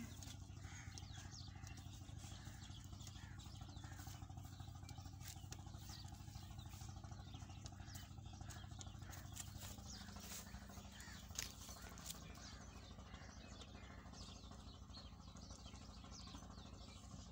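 Faint chirping of small birds, many short calls scattered throughout, over a steady low hum, with one sharp click about eleven seconds in.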